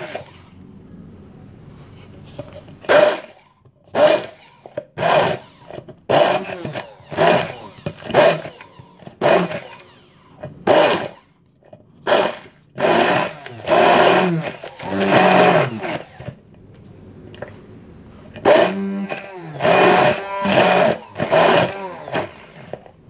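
Hand-held stick blender switched on in short pulses, about one a second, each burst whirring up and stopping as the blades chop chillies in a tall metal beaker. There is a pause of about two seconds past the middle.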